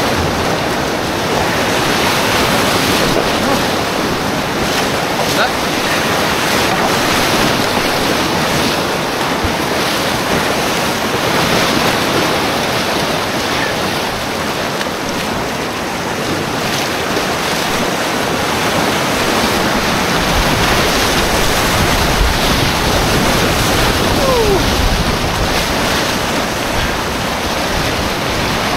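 Whitewater rapids rushing loudly and steadily around a kayak running a continuous, rocky river rapid.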